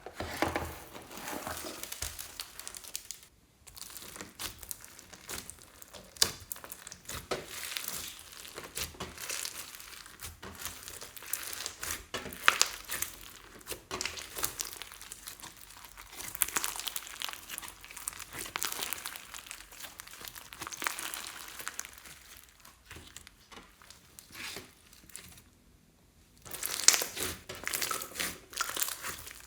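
Clear slime being squeezed and kneaded by hand: a dense run of sticky clicks and crackles, broken by two short pauses, with a louder flurry near the end.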